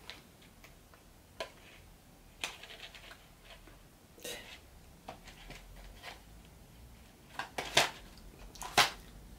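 Cardboard medicine boxes being handled: a few scattered soft rustles and taps, the two loudest near the end.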